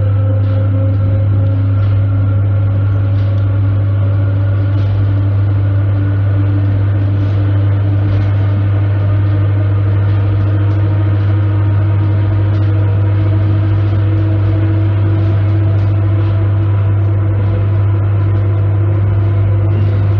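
Inside a moving ER9p electric multiple unit: a steady deep hum with the traction motors' whine rising slowly in pitch as the train gathers speed, and faint clicks from the wheels over the track.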